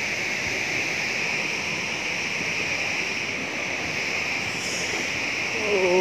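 Steady rush of falling water from Fukuroda Falls, a large waterfall heard at close range. Near the end a voice slides down in pitch.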